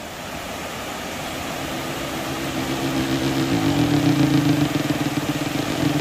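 Steady rush of a waterfall cascading over rock, fading in and growing louder. A low steady hum rises under it in the second half.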